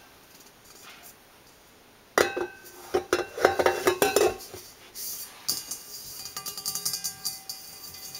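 A KitchenAid stand mixer's stainless steel bowl clanking and ringing as it is handled. Starting about two seconds in, there is a quick run of knocks, and from about five seconds on there is steady scraping and rattling of metal on metal as the bowl is seated on the mixer's base.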